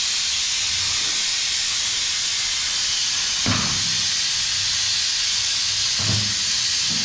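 Steady hiss of a water spray from a hose nozzle washing down a lawn mower, with two dull knocks, one about halfway and one near the end.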